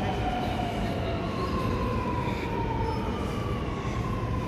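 Sydney Metro Alstom Metropolis train braking into the platform. Its motors give a whine in a couple of tones that fall slowly in pitch, over a steady low rumble.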